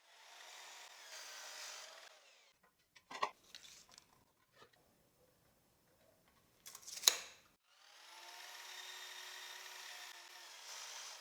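A power saw making two cuts through a cedar board, each lasting two to three seconds, one at the start and one near the end. Between the cuts come two sharp knocks of wood being handled.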